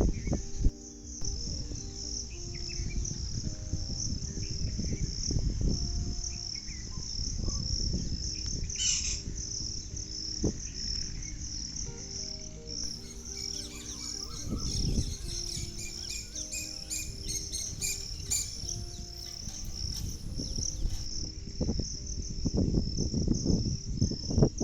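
A steady high insect trill with birds chirping over it, the chirps busiest in the middle of the stretch, above a slow melody of soft background music and a low, uneven rumble.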